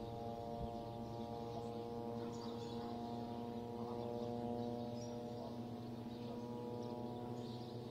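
Steady droning hum made of several held tones, with faint short high chirps scattered over it.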